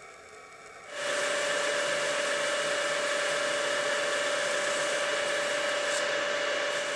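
A motor-driven machine running steadily, a loud whirring rush with a constant whine. It starts suddenly about a second in and dies away near the end.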